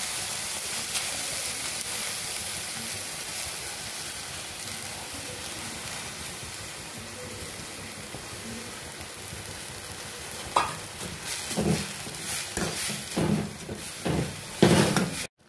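Ponnanganni greens and soaked moong dal sizzling in a hot kadai with a steady hiss. From about ten seconds in, a slotted steel spatula scrapes and knocks against the pan in quick strokes as the mixture is stirred.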